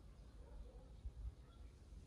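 Near silence: faint outdoor background with a low rumble and a soft low thump about a second in.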